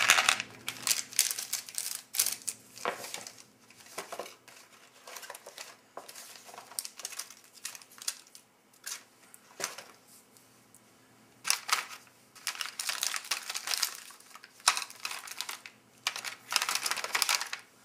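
Crinkling of MRE packaging pouches being handled, in bursts: at the start, for a few seconds past the middle, and again near the end, with softer rustling in between.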